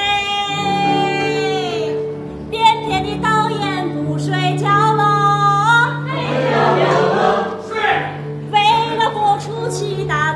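A woman singing a folk-style song solo, holding long notes that slide down at their ends, over a steady instrumental backing, with a choir answering in a short refrain.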